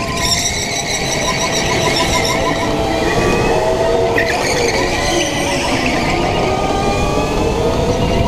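Racing go-kart running at speed, its motor's whine dipping in pitch about halfway through as it slows into a corner, then climbing again as it accelerates out.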